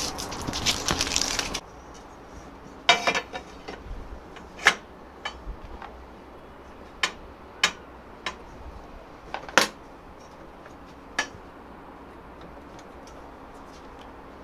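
Lengths of aluminium V-slot extrusion being handled, measured against a steel rule and set down, giving a string of sharp metallic clinks and knocks, about a dozen spread over several seconds. A loud rough noise at the start cuts off suddenly after about a second and a half.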